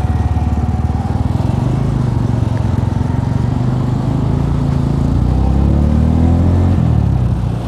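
Motorcycle engines running as the bikes ride off along the road, the engine note rising in pitch about five to seven seconds in.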